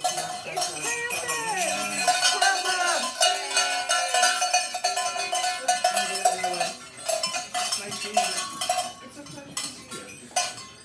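Cowbell-type Krampus bells clanging and jangling continuously as they are shaken. The clanging is dense for the first several seconds, then thins and quiets from about seven seconds in.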